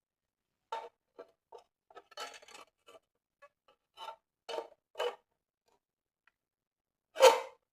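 A Kodak Six-20 Brownie E metal box camera's shutter and mechanism clicking: a string of small clicks and rattles, then one louder click near the end.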